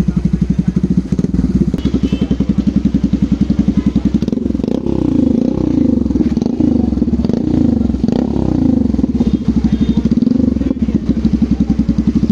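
Yamaha FZS V3's single-cylinder engine running through an aftermarket exhaust. It idles with an even, rapid pulse, is revved in a series of throttle blips from about four seconds in, and drops back to idle near ten seconds.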